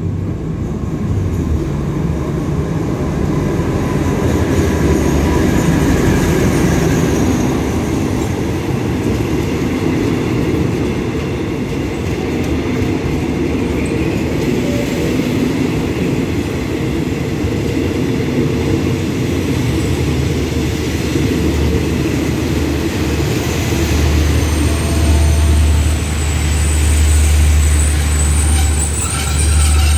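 Diesel-hauled express passenger train pulling into the station to stop: the locomotive passes, then the coaches roll by with a steady rumble of wheels on the rails. A strong low hum grows in the last several seconds.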